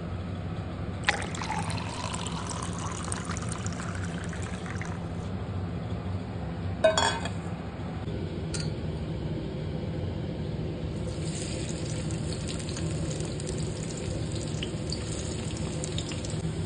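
Water running or being poured in two spells, the first starting about a second in and stopping near five seconds, the second starting near eleven seconds, over a steady low hum. A sharp knock near the middle is the loudest sound.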